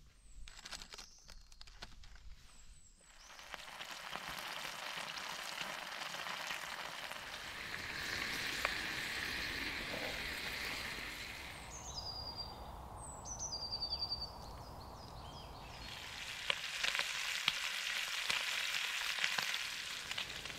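Burger patties and bacon sizzling in a frying pan over a small wood-burning stove, after a few clicks and bird chirps in the first three seconds. For a few seconds in the middle the sizzling drops away and small birds chirp, then the sizzling comes back loud.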